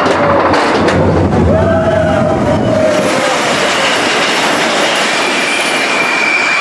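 Expedition Everest roller coaster train running fast along its track, heard from a seat on board. A heavy rumble of the wheels in the first few seconds gives way to a steadier rush with a thin high wheel squeal near the end.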